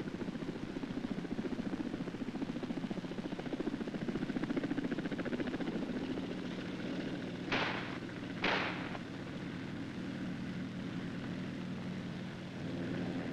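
Helicopter rotor and engine noise, a fast beating chop in the first half giving way to a steadier drone. About halfway through come two sharp bangs about a second apart.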